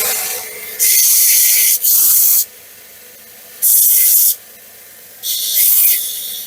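Belt grinder abrading small metal pieces: four short passes of harsh hissing grinding, each under a second, with the quieter running belt between them.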